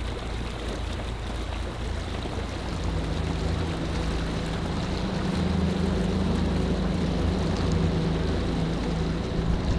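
Outboard motor of a bass boat running at speed, its pitch stepping up about three seconds in as it gets onto plane, with water rushing along the hull.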